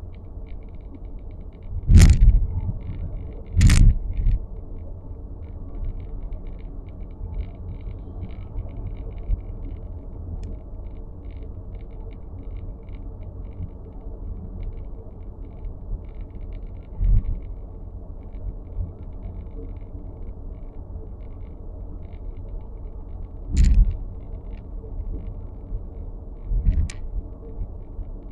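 Inside the cabin of a 2023 Nissan X-Trail e-POWER on the move: steady low road rumble with faint, irregular ticking and creaking from the dashboard, the abnormal dashboard noise being recorded. A few sharp knocks stand out, two about two and four seconds in and two more near the end.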